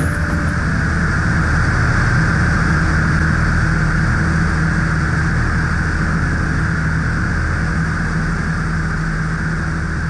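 Single-engine floatplane in cruise flight: a steady engine and propeller drone with wind rushing past the aircraft.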